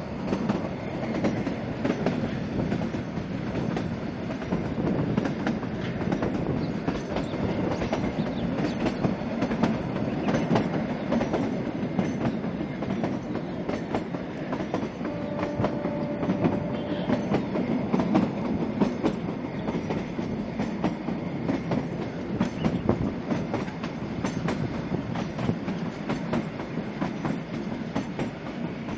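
Kalka–Shimla narrow-gauge toy train running, heard from an open carriage window: a steady rumble and rattle of the carriage with many irregular clicks and clatters from the wheels on the track.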